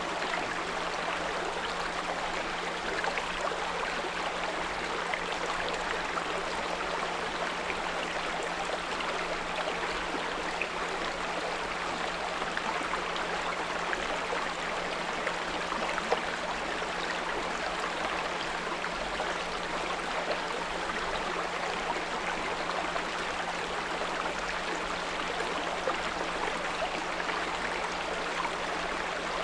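Small brook babbling steadily, with a steady low 174 Hz pure tone running underneath the water sound.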